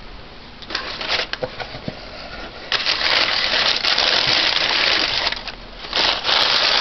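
Crumpled brown kraft packing paper being handled and pulled about inside a cardboard box, crinkling and rustling. A few scattered crackles come first, then a loud continuous crinkling of about two and a half seconds starting about three seconds in, and another short burst near the end.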